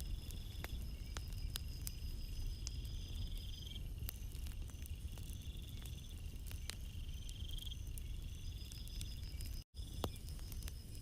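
Crickets trilling over a low, steady wash of calm sea at night. High, even tones are broken by repeated trills about a second long, with scattered faint ticks. The sound drops out for an instant near the end.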